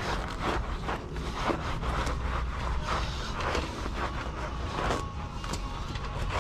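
Soapy scrubber rubbing over the wire mesh of a chicken cage in irregular scrubbing strokes, with a steady low rumble underneath.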